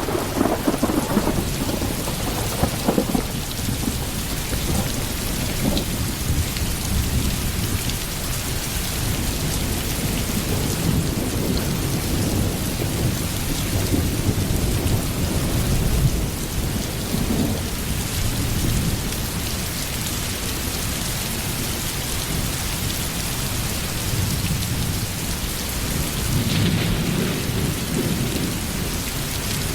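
Steady rain with low thunder rumbling on and off, swelling near the start, around the middle and again near the end.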